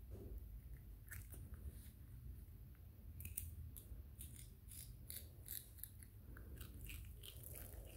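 Baby monkey biting and chewing a piece of raw green vegetable: faint, crisp crunching clicks, a few at first and then quick and dense from about three seconds in.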